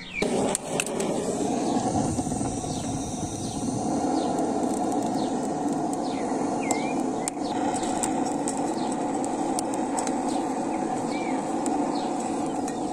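Handheld gas blowtorch running steadily against a pile of dry kindling, starting about half a second in. Birds chirp now and then over it.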